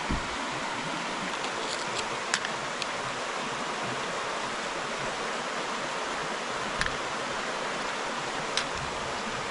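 River water flowing in a steady, even rush, with a few brief sharp ticks scattered through it.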